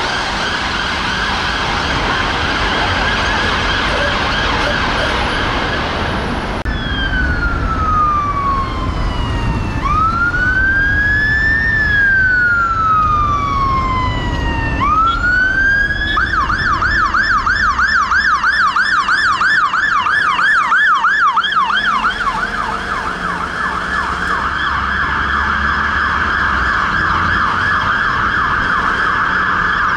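Emergency vehicle sirens over traffic and engine rumble. First comes a fast-warbling siren. About 7 s in, a London Fire Brigade fire engine's siren takes over in a slow wail, sweeping down, up and down, then switches to a fast yelp about 16 s in, and near 22 s settles into a rapid warble again.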